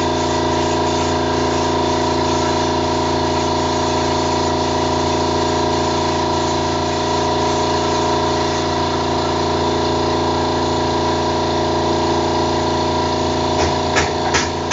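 Air compressor running steadily under the hiss of a cup-type paint spray gun spraying paint. A few sharp knocks come in near the end.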